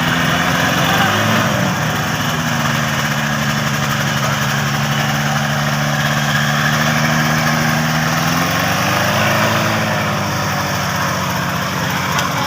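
A vehicle engine running steadily, its pitch shifting up and down about a second in and again about two-thirds of the way through.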